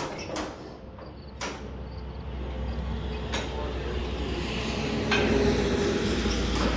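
A steady low mechanical rumble builds and grows louder over several seconds, with a few sharp clicks, as the two-cylinder Hart-Parr 18-36 engine is turned over on a starting attempt with gas in the primer cups. The engine is low on compression.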